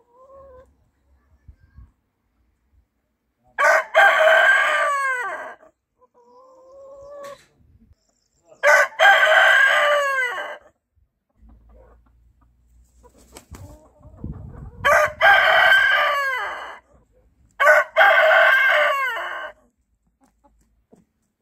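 Rooster crowing four times, each crow about two seconds long with a falling tail, with quieter hen calls in between.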